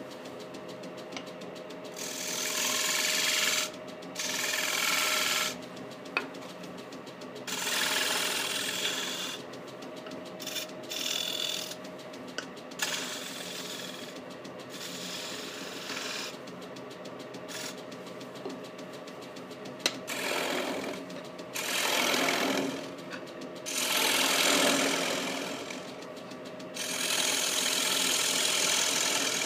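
Wood lathe motor running steadily with a turning gouge cutting into a small spinning wooden disc, in about nine separate passes, each a one-to-two-second burst of cutting noise over the motor's hum.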